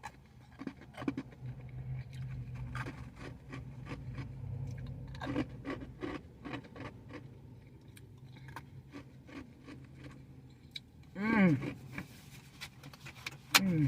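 Crushed ice being chewed close to the mouth: a long run of irregular, crisp crunches.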